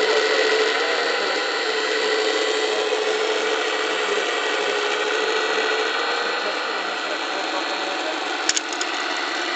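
Hydraulic pump of a 1:14.5-scale Wedico CAT 345 D RC excavator whining steadily while the arm digs and swings, with one sharp knock near the end.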